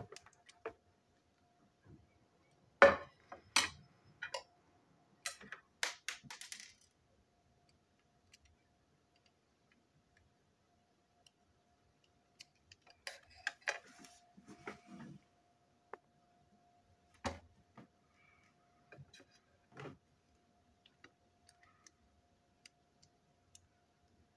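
Scattered clicks and knocks of small plastic toy-locomotive parts and screwdrivers being handled, picked up and set down on a tabletop. They come in two clusters, a few seconds in and again around the middle. A faint steady hum runs underneath.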